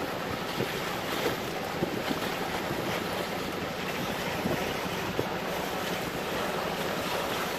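Wind rushing over a phone's microphone, a steady noise with no break.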